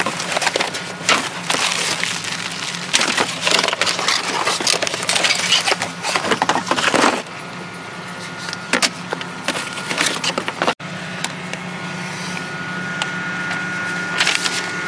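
Paper and cardboard crackling and rustling as a box of packing paper and parts is rummaged through by hand, dense at first, then thinning out about halfway through to a few scattered clicks and handling noises over a steady low hum.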